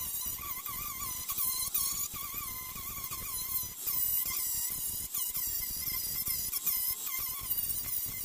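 Hand-held angle grinder with an abrasive disc grinding rusted sheet steel on an old VW bus quarter panel. It runs steadily, and its whine keeps dipping and recovering in pitch as the disc bites into the metal, over a hiss of grinding.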